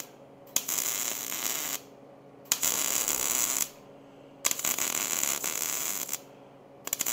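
Wire-feed welder arc-welding steel square tube in four short runs of steady crackling, each about a second long with brief pauses between.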